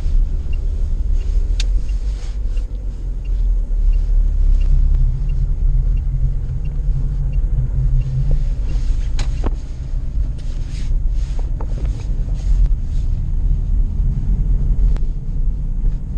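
Lada Priora being driven, with a steady low rumble of engine and road noise. A few sharp clicks or knocks come through now and then, the loudest about nine seconds in.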